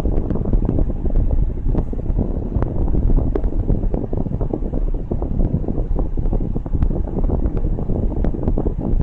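Steady rumbling wind buffeting on the microphone, heaviest in the low range, with frequent small pops.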